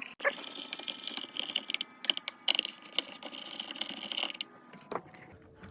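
Small power screwdriver whirring with a steady high-pitched whine for about four seconds as it backs screws out of the cleaner's plastic housing, with clicks of the bit and plastic parts; a few more clicks near the end.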